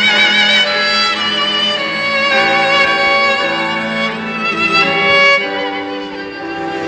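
Samsung Galaxy A55 ringtone playing: a melody on violin-like bowed strings, the held notes wavering with vibrato.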